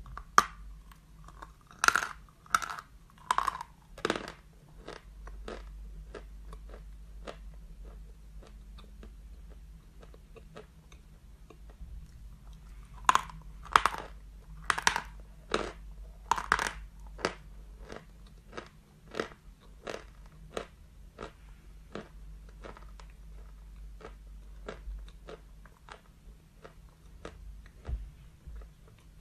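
Person biting into and chewing a lump of white chalk: loud, crisp crunches from bites in the first few seconds and again about halfway, with softer, evenly spaced chewing crunches, roughly one or two a second, in between and toward the end.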